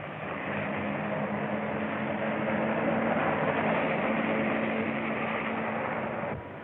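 Car engine running hard at speed with road noise, a steady drone that dips briefly near the end.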